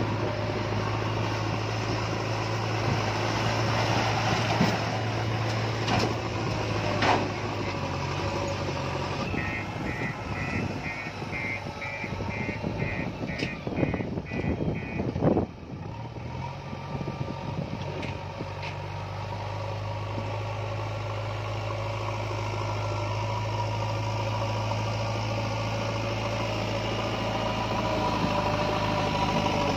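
Diesel engine of a JCB backhoe loader running steadily, its pitch shifting briefly around the middle. A reversing alarm beeps about twice a second for several seconds near the middle, and there are a few sharp knocks.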